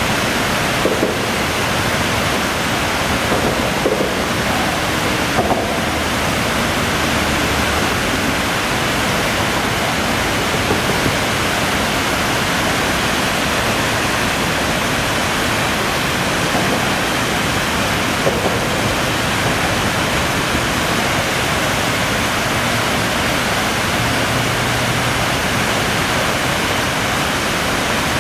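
Turbulent, foaming river water rushing and churning in whitewater: a loud, steady rush of water.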